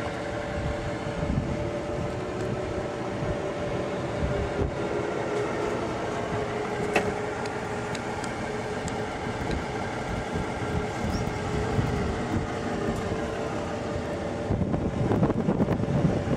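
Detroit Diesel Series 60 inline-six diesel idling steadily, heard up close at the open engine bay, with a steady hum over a low rumble. It gets louder for the last couple of seconds.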